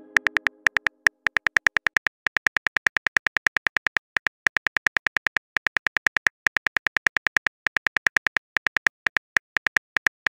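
Simulated phone keyboard typing clicks: rapid, evenly spaced taps, about nine a second, in runs broken by short pauses. The tail of a message chime fades out in the first half-second.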